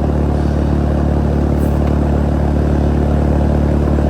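Outdoor air-conditioning condensing unit running: steady low hum of the compressor and condenser fan, unchanging throughout, while the system is being charged with refrigerant.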